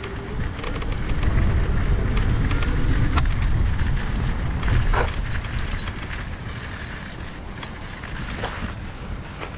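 Bike tyres rolling over a gravel path, with small crunching clicks, under a low wind rumble on the action camera's microphone that is loudest in the middle. A thin high whistle comes and goes near the end.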